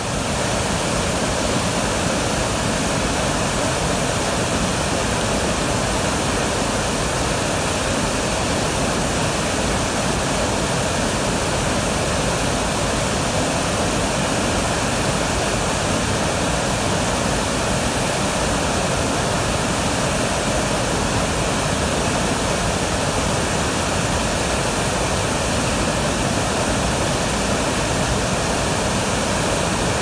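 Large waterfall in flood, a wide fall of muddy brown water crashing onto rocks: loud, steady rushing water with no let-up.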